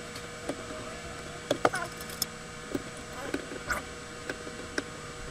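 Small clicks and taps of a screwdriver and metal parts on an airsoft AEG gearbox shell as the halves are held together and screws are started. There are irregular clicks throughout, the loudest a pair of sharp ones about a second and a half in, over a faint steady hum.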